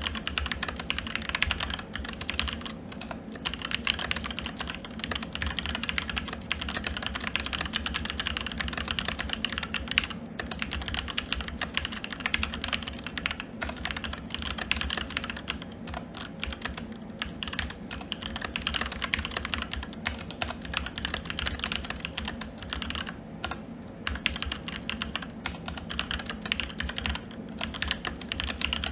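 Continuous fast typing on a SteelSeries Apex 7 TKL mechanical keyboard with red linear switches: a dense, unbroken stream of keystroke clacks.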